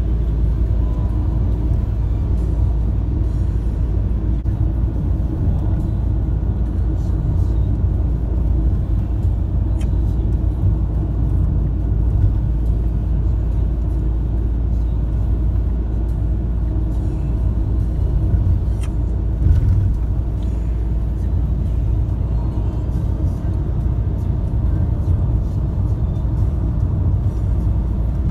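Steady road and engine rumble heard inside the cabin of a car cruising on a highway, with one short thump about two-thirds of the way through.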